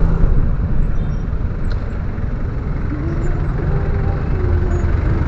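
Steady low rumble of a motorcycle engine and the surrounding stop-and-go traffic. About three seconds in, a held pitched tone sits over it for around two seconds.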